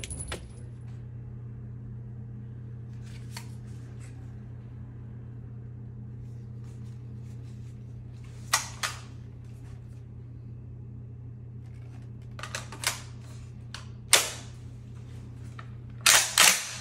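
Steady low electrical hum with a handful of sharp clacks and cracks: a pair about halfway, another pair and a single one later, and a louder double near the end.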